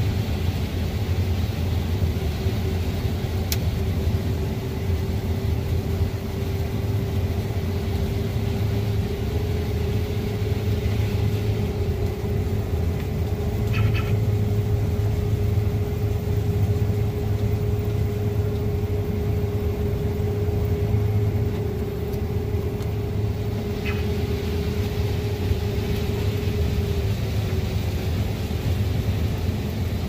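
Combine harvester running while harvesting corn, heard from the operator's cab: a steady low engine and threshing-machinery drone with a steady whine on top. Short beeps from the cab sound about halfway through and again some ten seconds later.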